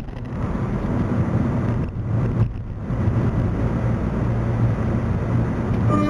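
Low, steady rumble of road and engine noise inside the cabin of a Mitsubishi Lancer Cedia wagon on the move, with no music playing.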